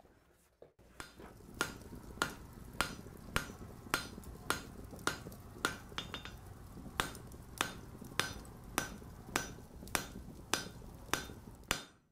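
Hammer blows on an anvil, each with a short metallic ring, evenly paced at a little under two strikes a second. They start about a second in, over a steady low rumble.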